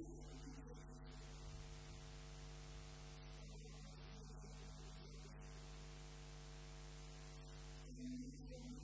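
Faint, steady electrical mains hum on the recording over quiet room tone, with a soft brief sound right at the start and again about 8 seconds in.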